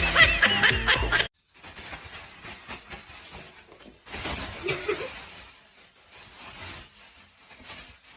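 Music with a bouncing melody that cuts off suddenly about a second in, followed by faint rustling and light knocks with a brief low voice-like sound near the middle.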